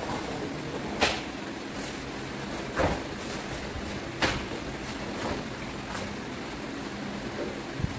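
Wooden bo staff swishing through the air in quick strikes and swings, three sharp swishes about one, three and four seconds in and a few fainter ones later. A steady hiss and hum lie underneath.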